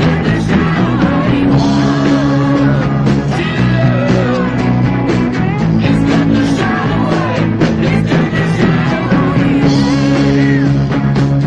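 Rock song with a singing voice and a steady beat, played as music.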